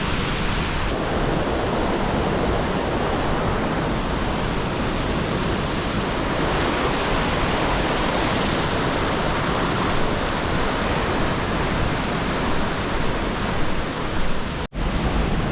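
Loud, steady roar of a large waterfall close by, a dense rushing of falling water with no letup, apart from a split-second break near the end.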